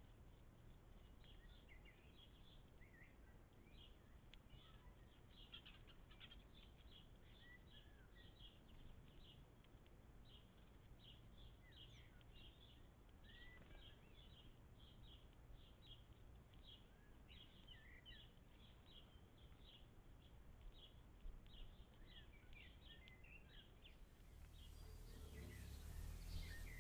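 Faint small-bird chirping, short calls repeated about two or three times a second over a low steady rumble, picked up by a trail camera's small microphone. Near the end the background rumble grows louder.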